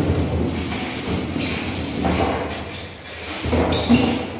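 Styrofoam packing being pulled out of a cardboard box: foam scraping and squeaking against the cardboard, with a few knocks and rustles.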